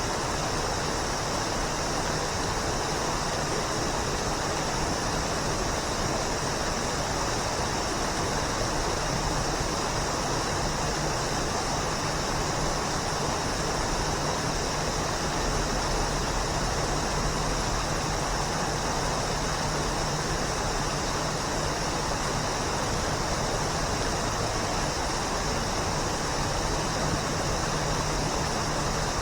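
Waterfall pouring steadily: a constant, even rush of falling water with no breaks or changes.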